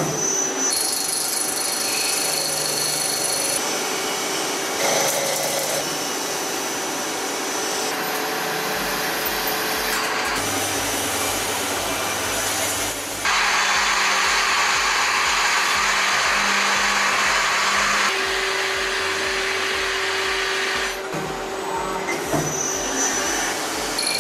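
Hwacheon Hi-TECH 230 CNC lathe turning an 18CrNi8 steel pinion: the spindle runs while the tool cuts the steel, the sound shifting from one cut to the next, with a louder, hissing stretch of cutting a little past the middle.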